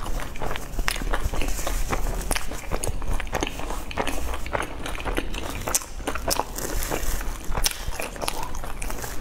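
Close-miked chewing and the crinkling of a paper tissue being handled: a dense, uneven run of small crackles and clicks.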